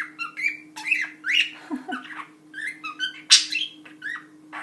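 Budgerigar chattering: a quick, unbroken run of short varied chirps, warbles and clicks, with one louder sharp note a little over three seconds in.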